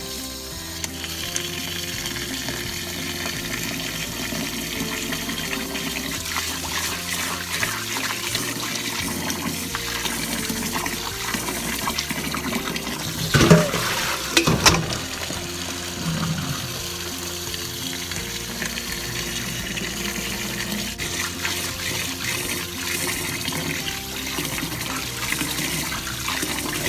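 Tap water running onto rice in a stainless mesh colander in a steel sink, while hands rub and stir the grains to wash the rice. Two louder brief sounds come about halfway through.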